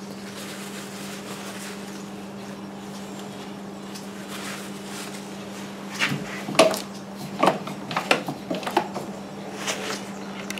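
A steady low hum, then from a little past halfway a string of irregular knocks and clicks.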